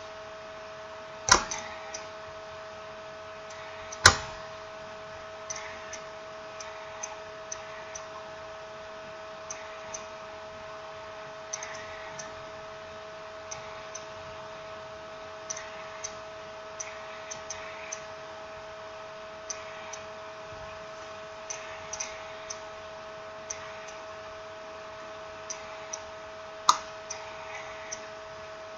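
Small scattered clicks and taps of smartphone parts and tools being handled, with three sharper, louder clicks about a second in, about four seconds in and near the end, over a steady electrical hum.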